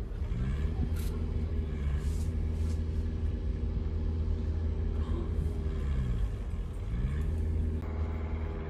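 A motor vehicle's engine running over a steady low rumble, its pitch dropping and rising again several times as the revs change.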